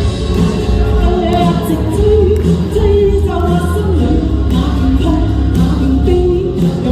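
A singer performs live over a pop accompaniment with a steady beat. The sung melody carries on throughout.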